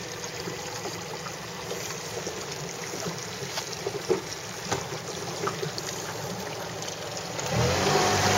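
Water lapping and slapping against the side of a small boat, with light wind on the microphone and scattered small knocks. Near the end a louder, steady rush with a low hum sets in.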